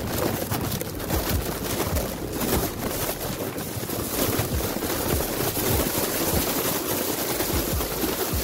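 Wind buffeting the microphone of a mobile phone carried aloft on a kite: a steady rushing noise broken by irregular low thumps as the phone swings in the air.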